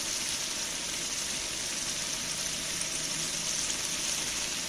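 Fish curry in a large aluminium pot sizzling steadily over a wood fire, a continuous even hiss.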